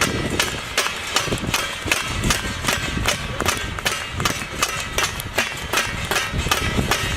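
Drums beaten in a fast, even rhythm, about four to five sharp strikes a second without a break.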